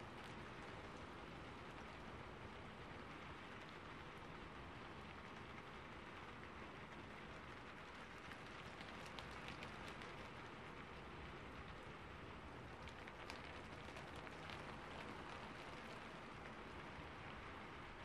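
Rain falling steadily on a roof, an even wash of patter with a few sharper drop ticks now and then.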